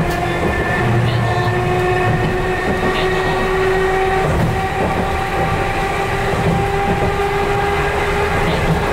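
Chikuho Electric Railroad 3000 series electric train running, heard from the cab: a hum of several steady motor tones slowly rising in pitch as it picks up speed after a station stop, over a continuous rumble of wheels on rail.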